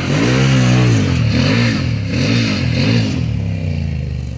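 Can-Am Maverick 1000 side-by-side's V-twin engine revving up and down over and over, its pitch rising and falling several times as it is driven hard on dirt. The engine note fades near the end.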